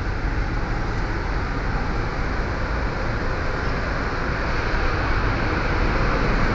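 Steady engine rumble and machinery noise on a roll-on/roll-off ferry's enclosed vehicle deck, packed with trucks.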